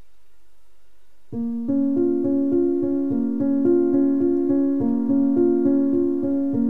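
Background keyboard music: piano notes playing a steady, repeating pattern, coming in about a second in.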